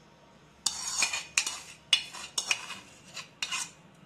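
Metal spoon scraping and clinking against the inside of a small steel pan, about seven quick strokes starting about a second in, to get the last of the melted butter out.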